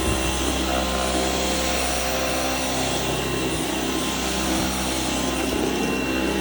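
Dyson Outsize cordless stick vacuum running steadily: a constant motor hum and high whine with the rush of air through the suction.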